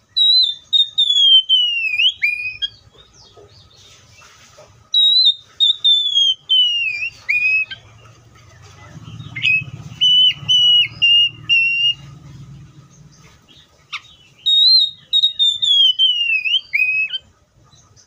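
Oriental magpie-robin singing loud, clear whistled phrases. Three long notes slide downward in pitch, and between them comes a run of short repeated whistles.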